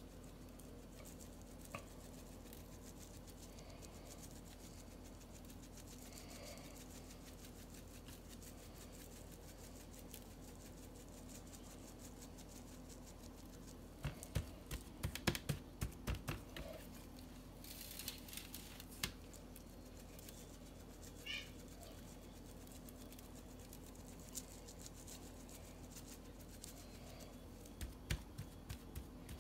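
Dry rub shaken from a plastic seasoning shaker bottle: clusters of sharp taps and rattles from about halfway through, and again near the end, over a faint steady hum.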